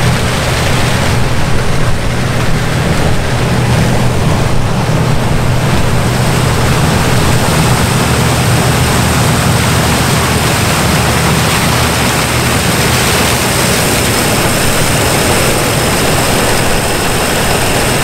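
Large diesel farm machine running steadily under load: a constant low engine hum under an even hiss of machinery noise.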